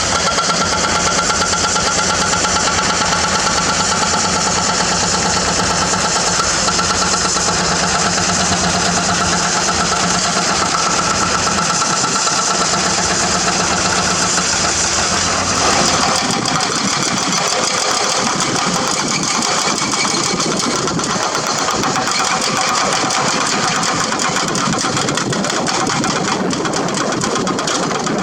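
Hydraulic excavator's diesel engine running steadily at working revs. About halfway through, the deep low rumble drops away and the sound becomes thinner.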